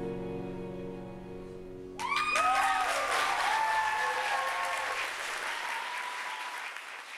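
The final held chord of the music fades out. About two seconds in, an audience starts applauding with whoops and cheers, which slowly die down near the end.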